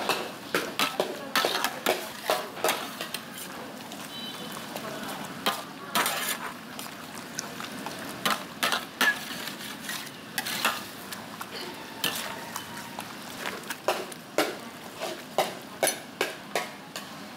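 Metal ladle and spatula scraping and clanking against a large steel wok as a stir-fry is tossed, with many irregular sharp strikes over a steady hiss of frying.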